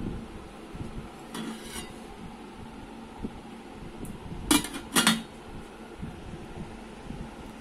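Aluminium pot lid and cookware clanking: two sharp metal clanks about half a second apart a little past halfway, after a fainter rattle of metal about a second and a half in.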